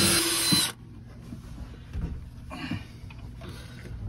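Power drill boring a new hole, its motor whining steadily and then stopping suddenly under a second in. Light knocks and handling rustles follow.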